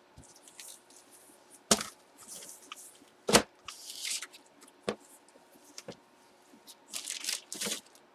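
Packaging and items being handled on a tabletop: two sharp knocks, the second the loudest, then lighter taps and bouts of plastic rustling near the end.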